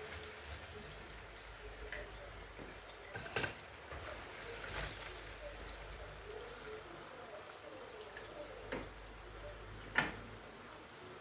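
Chicken pieces frying in hot oil, a steady sizzle and crackle, with a few sharp knocks, the loudest about three seconds in and again near the end.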